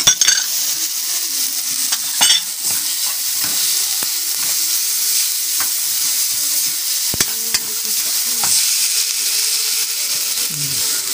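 Tomatoes, onions, ginger and miso sizzling as they sauté in a hot metal wok, stirred with a metal spatula that scrapes and clinks against the pan, with a sharp scrape about two seconds in.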